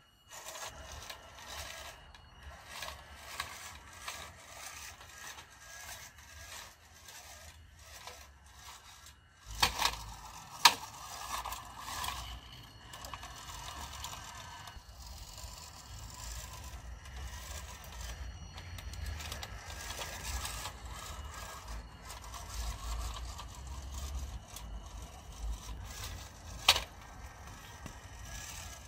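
WPL B-1 1/16 RC military truck driving over paving and a ramp: its small electric motor and gearbox whine steadily under scraping and rattling from the tyres and chassis. There are a few sharp knocks as it bumps over edges, about ten seconds in and again near the end.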